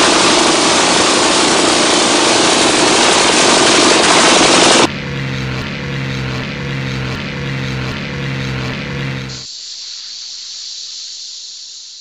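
Pneumatic jackhammer hammering, very loud and continuous for about five seconds. It then drops to a quieter rhythmic mechanical sound with a low hum, and near the end a steady hiss fades out.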